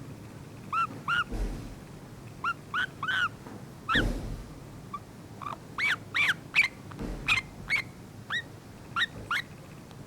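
Pet yellow-vented bulbul making soft baby noises: about fifteen short chirps, each rising then falling in pitch, in irregular bunches of two or three.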